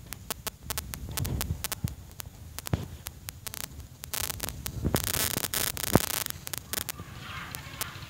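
Irregular sharp clicks and taps close to the microphone, thickest about four to six seconds in, over a low rumble of wind on the microphone.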